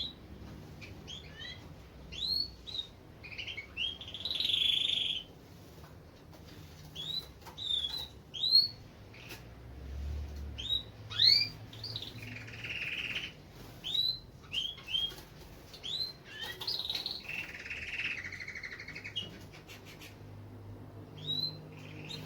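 Canaries chirping: many short, sharp rising call notes, with a few short buzzy trills in between.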